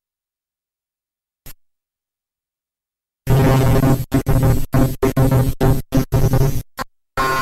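Circuit-bent toy low-rider truck's sound chip glitching: silent at first apart from one short blip, then from about three seconds in a loud glitchy electronic sound that stutters on and off in short chopped bursts.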